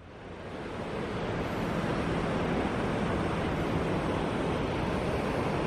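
Steady rushing of ocean surf and wind in the open air, fading in over the first second.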